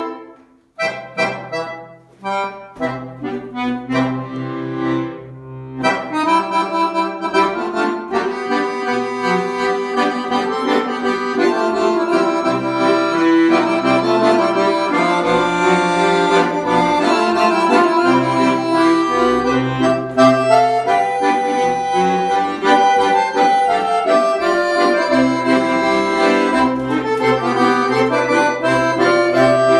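Weltmeister Consona piano accordion being played: a few short, separated chords over the first six seconds, then a continuous tune with steady bass notes underneath.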